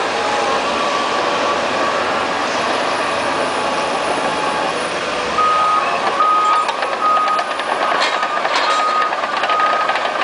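Liebherr PR 744 crawler bulldozer running, a dense steady machine noise. About halfway through, a reversing alarm starts beeping about one and a half times a second, and a few sharp knocks come near the end.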